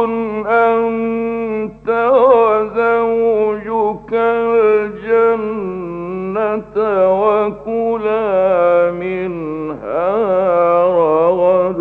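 A man's voice reciting the Quran in melodic, chanted style, with long held and ornamented notes broken by short pauses for breath. A faint steady low hum from the old radio recording runs underneath.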